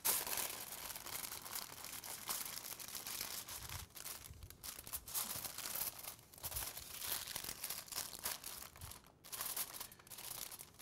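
Aluminium foil and parchment paper crinkling as they are folded down over the edge of a dish, in rustling spells with a few short pauses.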